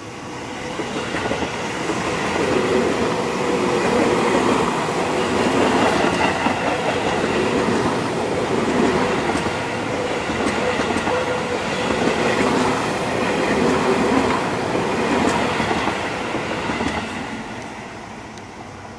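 Seibu 20000 series electric multiple-unit train passing close by as it pulls out of a station: steady rolling of wheels on rail with clicks over the rail joints. It swells within the first two seconds, holds as the cars go by, and fades near the end as the last car passes.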